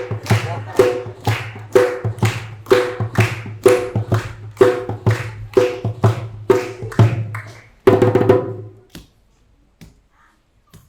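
Recorded music with a steady beat of sharp, woodblock-like percussive strokes about two a second over a steady bass, ending with a final stroke about eight seconds in and then dying away.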